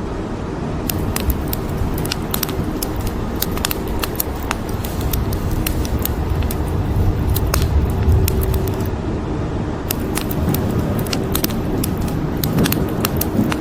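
A wood fire crackling with frequent sharp pops over steady rain. A low rumble of thunder swells to its peak about eight seconds in.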